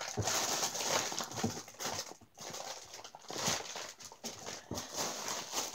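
Hands rummaging through a box of squishy toys: irregular rustling with light knocks as things are pushed about.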